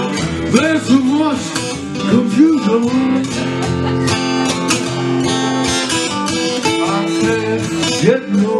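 Acoustic guitar strummed steadily, with a man's voice singing into the microphone in wavering, sliding phrases.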